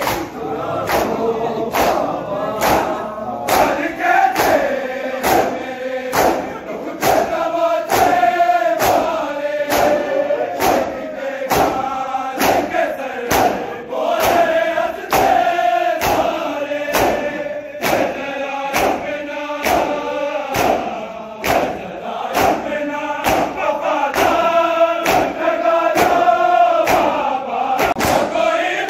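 Large group of men chanting a noha in chorus, with the steady rhythmic slaps of matam, hands striking bare chests, marking the beat at somewhat more than one strike a second.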